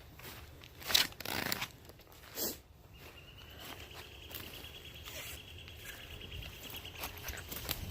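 An insect starts a steady, finely pulsing high trill about three seconds in. Before it come a few short crunching or rustling noises, the loudest about a second in.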